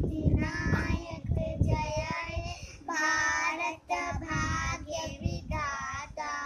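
Two young girls singing a patriotic Hindi song in high child voices.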